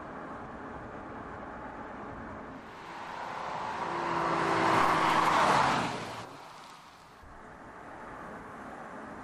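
Audi A5 Cabriolet TDI quattro passing close by: its turbodiesel engine and tyre noise swell to a loud peak about five seconds in, then cut off abruptly. Steady rushing road and wind noise before and after.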